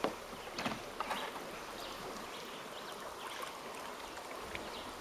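River water running and lapping around a poled river raft, with a few brief splashes or knocks, most of them in the first second.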